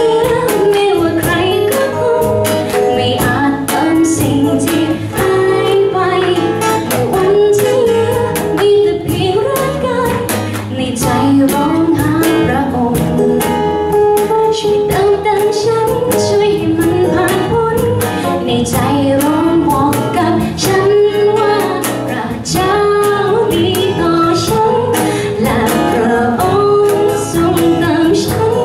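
Young woman singing a Thai worship song live into a microphone, backed by strummed acoustic guitars, an electric guitar and a cajon keeping a steady beat.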